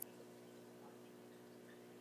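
Faint aquarium filter: a low steady hum with soft scattered drips of water, and one small click right at the start.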